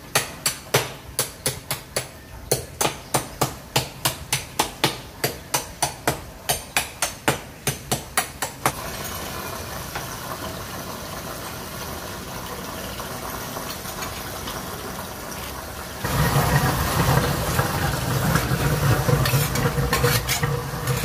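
A hammer striking in a quick even series, about three blows a second, roughly 25 in all, stopping about 8.5 seconds in. A louder steady hum with a rushing noise takes over near the end.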